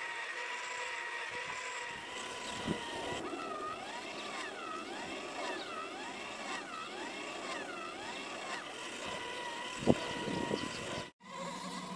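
Small electric wheel motors of a Thymio II robot whining as they drive a cardboard kayak model's paddles. The whine is steady at first, then from about three seconds in its pitch rises and falls in a regular wave about once a second. A light knock about three seconds in and a sharp click near the end.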